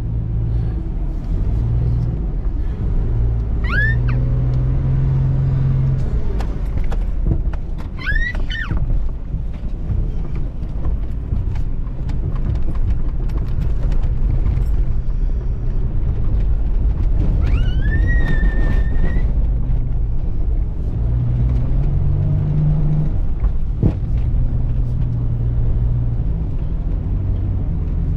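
Off-road vehicle engine running over a trail, its low note stepping up and down with the throttle. Three short high squeals rise in pitch about 4, 8 and 18 seconds in, the last held for about a second, and there is a sharp click near the end.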